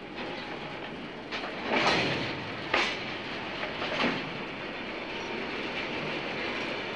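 Empty railway freight wagon rolling off a Culemeyer road trailer onto the rails, pushed by hand: its steel wheels clank several times over the ramp and rails in the first four seconds, loudest about two seconds in, then roll on with a steady noise.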